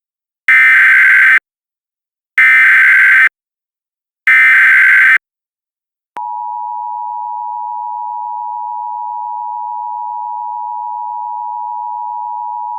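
Emergency Alert System broadcast: three short bursts of SAME digital header data, then, about six seconds in, the steady two-tone EAS attention signal begins and holds.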